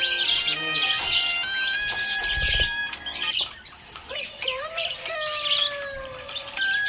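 Budgerigars chirping and chattering in quick busy bursts over background music with long held notes. The chirping thins out briefly in the middle, then picks up again.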